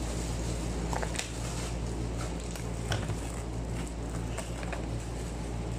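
Small cardboard box with a plastic window being handled and pried open by hand: scattered light scratches and clicks of the packaging, over a steady low hum.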